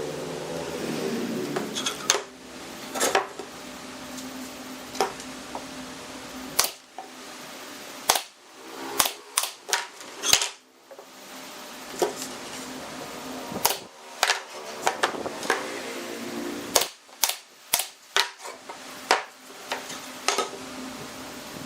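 Irregular sharp knocks and clacks of hand work on wood and tools in a workshop, over a low steady hum that fades after the first few seconds and comes back near the end.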